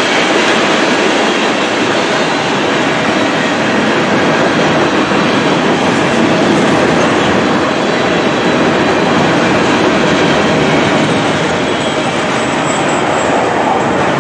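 Freight train of tank cars and double-stack container cars rolling by: a steady noise of steel wheels on the rails.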